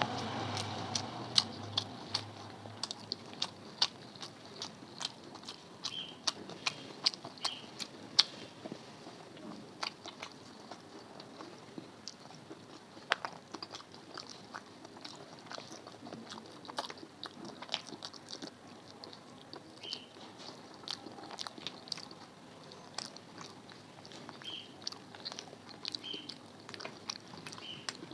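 Close-miked eating sounds: chewing with mouth smacks and many sharp, irregular clicks, as a meal of rice and curry is eaten.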